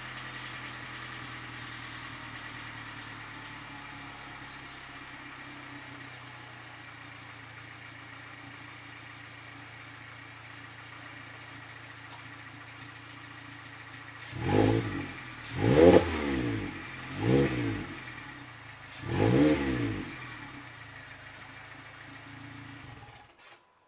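Mazda MX-5 ND 2.0-litre four-cylinder idling through a GReddy Supreme SP axle-back exhaust as it settles after a cold start on E85. About halfway through come four quick throttle blips to around 3,000 rpm, the loudest sounds here. The engine drops back to idle and then cuts off suddenly near the end.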